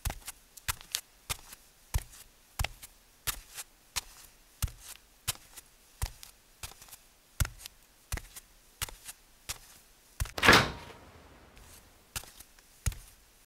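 Footsteps in boots on a hard floor, a couple of dozen sharp, uneven knocks. About ten and a half seconds in comes a louder rush lasting about a second, as a refrigerator door is pulled open.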